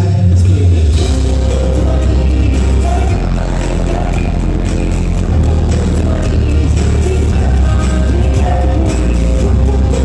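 Live band playing through a theatre sound system: deep bass line, a steady beat, electric guitar and keyboards, with a man singing.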